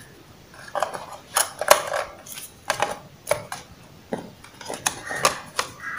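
Handling of a phone's boxed accessories and packaging: irregular light clicks and taps with a little rustling as small plastic and paper items are picked up and moved in the box tray.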